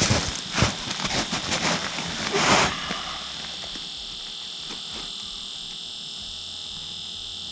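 Rustling and knocking of people handling gear and moving in heavy winter clothing on snow, for about the first three seconds. After that only a steady, high-pitched whine remains.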